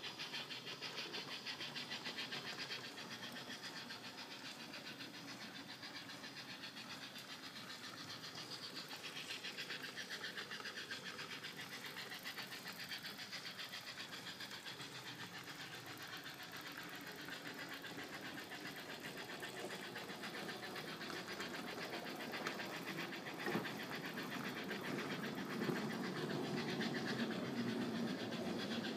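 An ESU LokSound DCC decoder in an O gauge model locomotive plays an LBSC Terrier steam-engine sound: a rapid, steady chuffing through the loco's small speaker as the train runs. It grows louder in the last few seconds.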